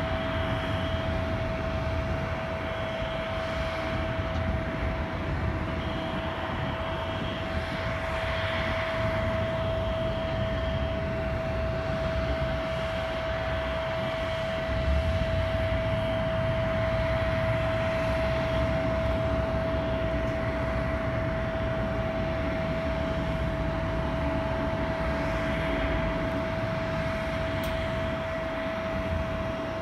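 Jet airliner running on the ground: a steady, unchanging whine over a low rumble.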